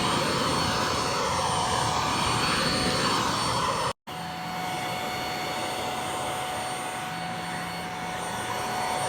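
Handheld bed vacuum running steadily, a strong airflow rush with a high motor whine. It cuts out briefly about four seconds in and resumes a little quieter.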